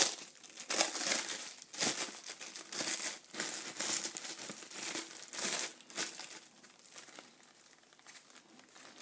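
Plastic packaging crinkling and rustling in irregular bursts as it is handled and pulled open, thinning out toward the end.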